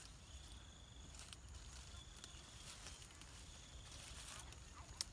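Faint outdoor ambience: an insect calling in three short high buzzes, about one every second and a half, over light wind rumble on the microphone, with a sharp click near the end as the tree's branches are handled.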